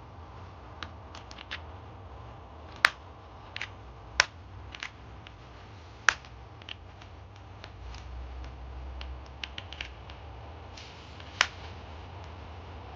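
Sharp clicks and light taps of small plastic and metal chainsaw parts being handled and fitted by hand, scattered irregularly, with four louder snaps among them, over a low steady hum.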